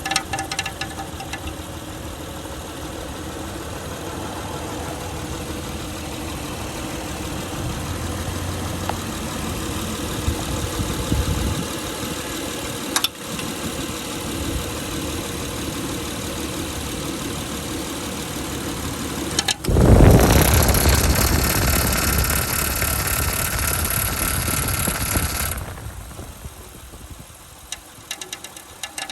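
Honda Pilot V6 engine running with a horrible noise from its cooling fan, damaged when it was pushed back into the alternator and engine in a front-end accident. About twenty seconds in, a much louder rushing noise starts and runs for about six seconds, then drops away.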